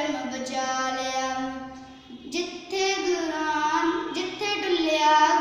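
A young girl singing a Punjabi devotional poem without accompaniment, holding long notes, with a short break about two seconds in before a higher phrase.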